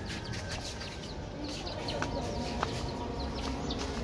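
Young chickens cheeping and clucking as they forage, a scatter of short high calls.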